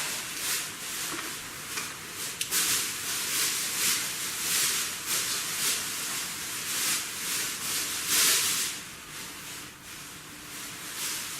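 Hands handling plastic drone parts and wires: a run of irregular rubbing and scraping as a GPS module's connector is worked into its socket.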